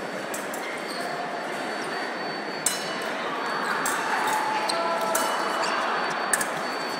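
Steady crowd murmur in a large hall, broken by a few sharp metallic clinks of fencing blades, the first about three seconds in and another near the end.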